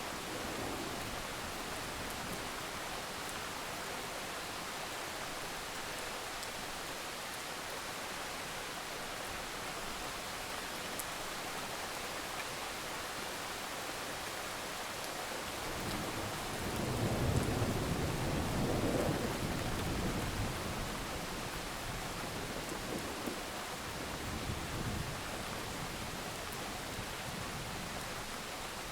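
Steady rain hissing, with a low rumble of thunder that swells up a little past halfway and dies away over several seconds.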